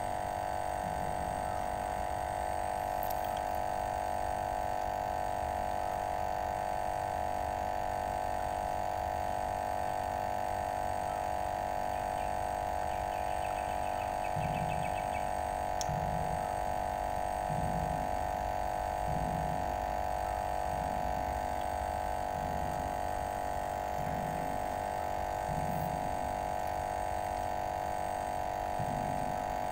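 A steady, even hum that holds at one pitch throughout, with faint low pulses recurring about every second and a half in the second half.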